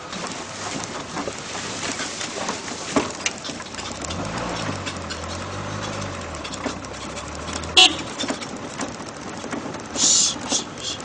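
Off-road vehicle driving slowly over a rough, rutted dirt track: steady engine and drivetrain noise with rattles and knocks from the bumps. The engine note rises and falls about four to six seconds in, and there is a sharp, loud knock at about eight seconds.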